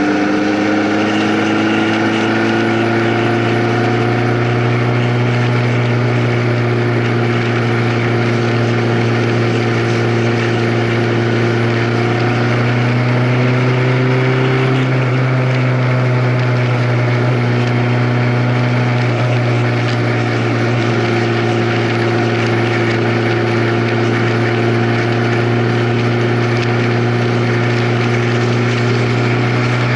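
A vehicle's engine running steadily while under way, under a constant rushing noise. Its pitch rises a little over the first few seconds and shifts slightly around halfway through.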